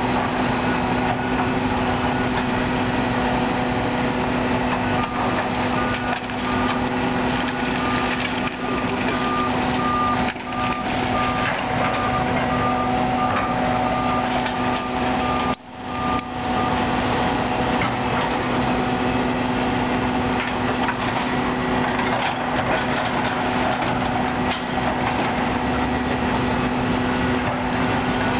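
Diesel engines of demolition excavators running steadily at work. A reversing alarm beeps about twice a second for several seconds in the middle.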